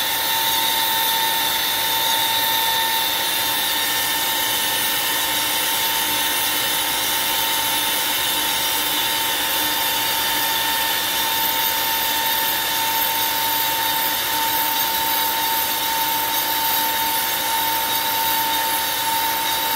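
CNC router spindle running steadily with a high whine while its long bit cuts a rotating wooden blank on a rotary axis, a roughing pass that takes off chips. The cutting hiss stays even throughout.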